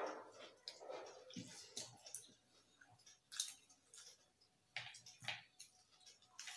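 Faint eating sounds: fingers mixing rice and dal on plates and chewing, heard as scattered short clicks and soft crackles, with one louder sound right at the start.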